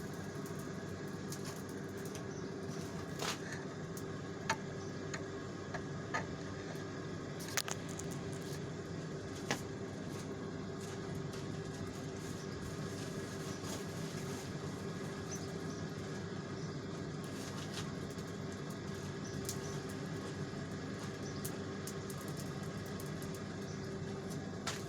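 Electric forge blower running with a steady hum, a few short sharp ticks scattered over it.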